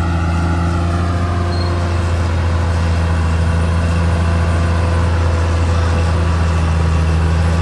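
Diesel engine of a Caterpillar D6R XL bulldozer running at a steady speed, a constant low hum.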